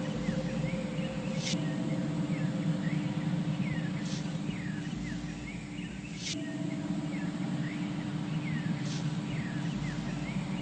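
Ambient outro of a phonk track: a low droning bed with steady held tones, over which short falling bird-like chirps and a sharp hiss-like hit repeat in a loop about every two and a half seconds.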